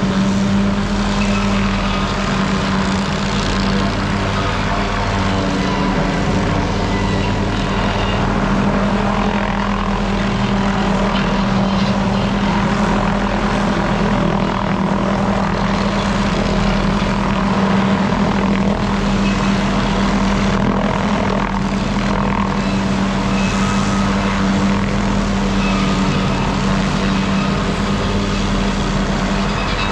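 A small engine running steadily at one high, unchanging pitch, with no let-up.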